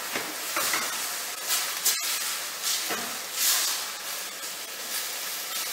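Minced meat and vegetables sizzling in a sauté pan on a gas hob as they are stirred, with tomato paste just added for a ragù: a steady hiss that swells briefly a few times.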